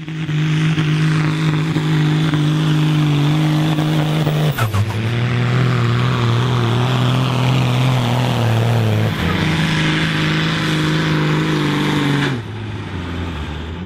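Diesel farm tractor engines running flat out under full load while pulling a weight-transfer sled, each holding a steady note. The sound cuts abruptly to a different tractor at a different pitch about every four seconds, and the last one is somewhat quieter.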